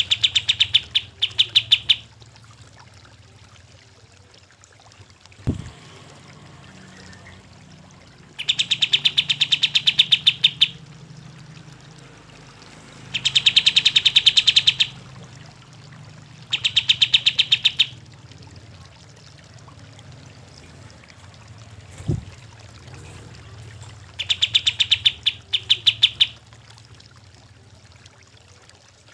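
Kapas tembak bulbul singing in full song: five bursts of rapid, evenly repeated high notes, each lasting about two seconds, with pauses of a few seconds between them. A steady sound of running water goes on underneath.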